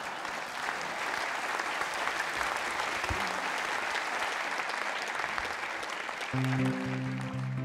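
Audience applauding steadily, a dense crackle of many hands clapping. Near the end an acoustic guitar starts playing as the applause dies out.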